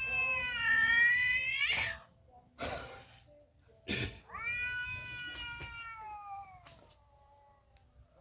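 Cat meowing: two long, drawn-out meows, the first rising in pitch at its end and the second slowly falling, with a short noisy burst and a sharp knock in between.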